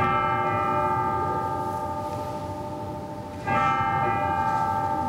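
Altar bell struck twice, about three and a half seconds apart, each strike ringing on and slowly fading. It is the bell rung at the elevation of the consecrated host during Mass.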